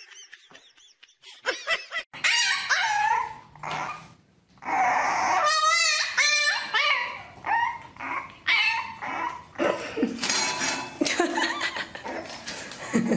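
French bulldog puppy whining and yipping in its wire crate: repeated high-pitched cries that waver up and down in pitch. The cries become loud about four and a half seconds in, after a quieter start.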